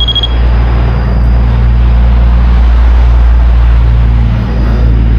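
Loud low rumble of a vehicle passing on the nearby highway, swelling towards the middle and easing off slightly. A brief high electronic beep sounds right at the start, which the ghost hunter takes as the REM pod going off.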